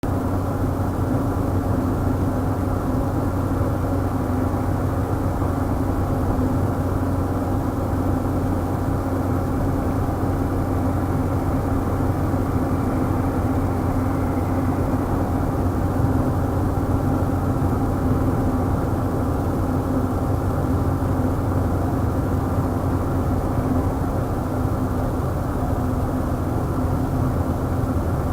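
A car driving at a steady speed, heard from inside the cabin: an even engine hum and road noise that do not change.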